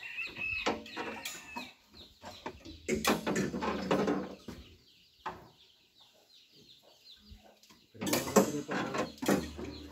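Chickens clucking in irregular runs, with a few light clicks and knocks between them.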